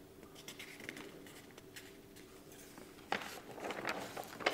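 Paper pages of a large picture book being handled and turned, a crisp papery rustle starting about three seconds in.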